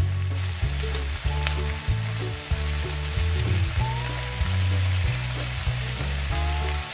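Background music with a prominent bass line, over the steady sizzle of spinach, red onion and red pepper frying in a pan.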